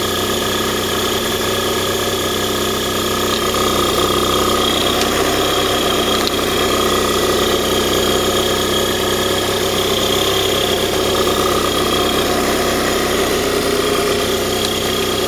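Microcar engine running steadily, with the abnormal noise (異音) that the owner is recording to find the fault.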